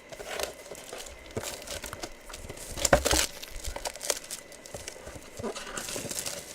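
Plastic wrapping crinkling and rustling as it is handled and pulled, with scattered clicks and knocks; the loudest crinkle comes about three seconds in.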